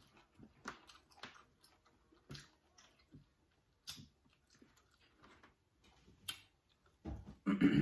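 Close-up eating sounds: scattered wet clicks and smacks from chewing seafood and from fingers picking meat out of lobster tail shell. A short bit of voice comes just before the end.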